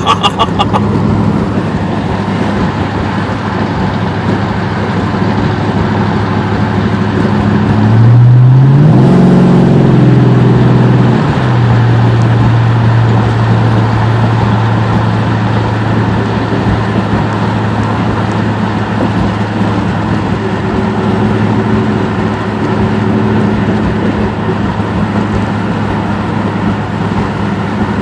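Lexus SUV engine running with a loud exhaust leak, heard from a car behind it: a steady engine drone with a leak the driver likens to air escaping directly out of the block, and takes for blown exhaust manifold gaskets. About eight seconds in, the engine note rises and is loudest for a few seconds, then settles back into a steady drone.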